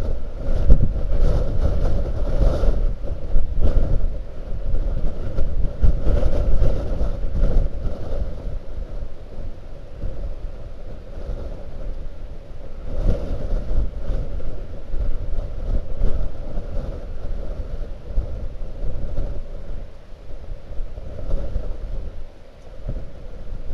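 Blizzard wind gusting against an outdoor webcam microphone: a deep buffeting rumble that surges and falls back, strongest in the first several seconds and easing near the end.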